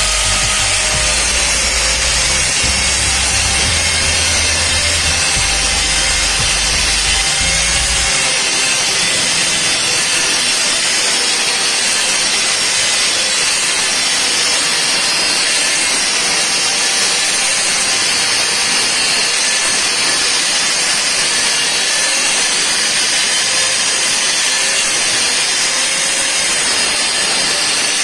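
Handheld angle grinder with an abrasive cut-off disc cutting through 2-inch iron pipe, a steady, unbroken grinding noise. For roughly the first eight seconds a low rumble runs under it.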